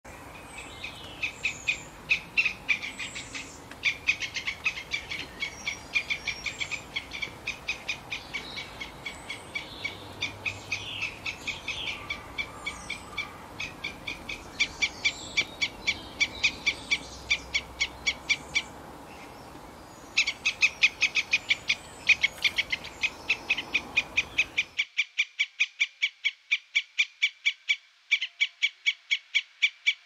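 Squirrel calling in long series of short, sharp chirps, about five a second, in bouts of several seconds with brief gaps. The faint background hiss cuts off abruptly about 25 seconds in while the chirping carries on.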